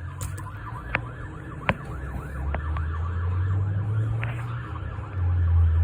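Fire engine's electronic siren on yelp, a fast up-and-down wail several times a second, with a loud low drone swelling underneath and jumping louder about five seconds in. Two sharp clicks sound near the start.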